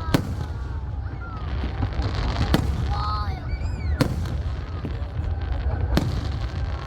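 Aerial fireworks bursting: four sharp bangs about one and a half to two seconds apart, over a steady low rumble, with crowd voices between the bursts.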